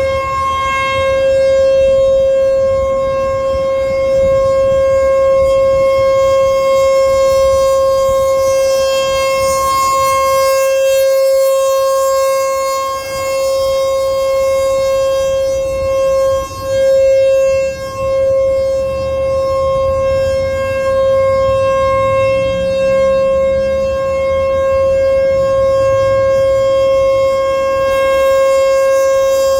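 American Signal Tempest T-128 outdoor warning siren sounding its steady Alert signal: one loud, unbroken tone that holds its pitch, with a few brief dips in level around the middle.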